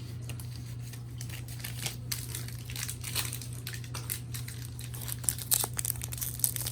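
Foil wrapper of a Pokémon trading-card booster pack crinkling as it is handled, in scattered crackles that grow denser and louder near the end, over a steady low hum.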